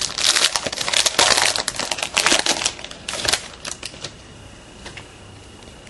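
Foil trading-card pack wrapper crinkling as it is peeled open by hand, stopping about three and a half seconds in; after that only a few soft clicks.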